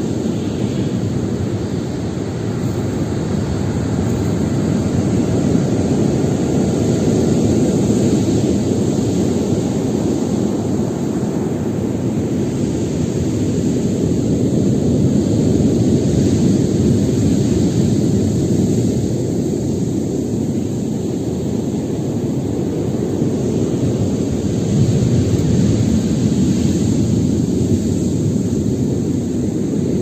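Storm surf: heavy waves breaking in a continuous low roar that swells and eases several times.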